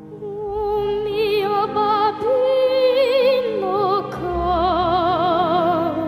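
Background music: a solo voice sings long, operatic notes with a wide, regular vibrato over sustained accompaniment. The melody steps up about two seconds in and drops again a little after four seconds.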